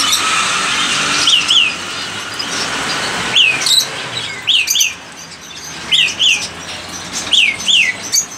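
A bird chirping: a short, high, falling call, usually doubled, repeated five times at roughly one-and-a-half-second intervals.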